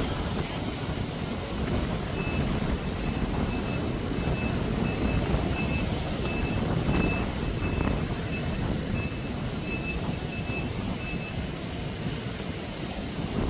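A vehicle's reversing alarm beeping steadily about twice a second for around nine seconds, starting a couple of seconds in, over a constant rumble of wind on the microphone.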